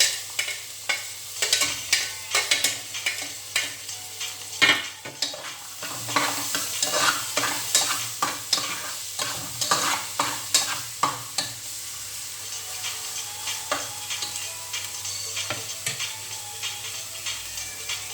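Onion and ginger sautéing in a pan, sizzling while a spatula stirs them, scraping and clicking against the pan. The stirring is busiest for the first two-thirds, then eases to fewer clicks over the sizzle.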